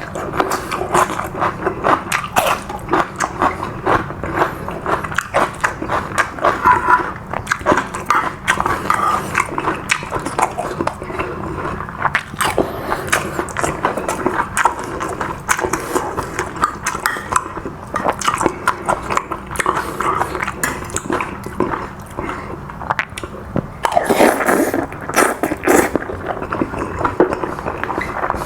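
Close-up mouth sounds of someone eating a spicy seafood holy-basil stir-fry: continuous wet chewing, biting and lip smacks in quick, irregular clicks, with a fuller burst of mouth noise near the end.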